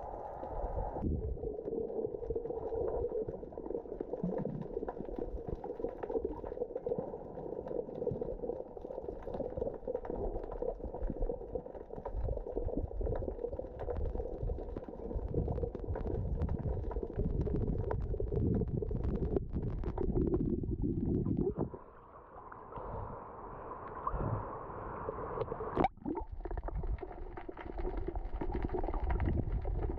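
Muffled underwater sound: water rumbling and gurgling with many scattered clicks. It goes briefly quieter a little past two-thirds of the way through, and one sharp knock follows soon after.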